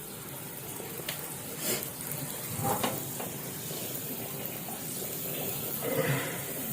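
Blue Band margarine sizzling as it melts in a frying pan heating on the stove: a steady hiss, with a few brief faint clatters.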